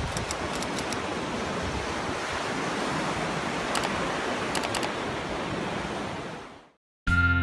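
A steady rushing noise, like surf, that fades away near the end; music starts just before the end.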